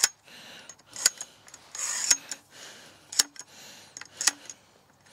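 Telescoping aluminium tent support pole being pulled out, its sections sliding with a rub and clicking into place about once a second.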